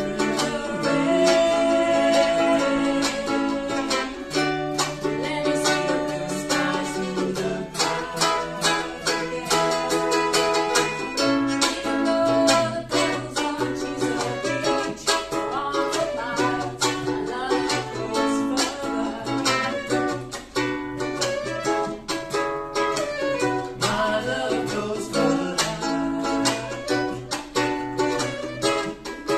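Live acoustic folk music: a ukulele and an acoustic guitar strumming a steady rhythm while a fiddle plays sustained notes over them.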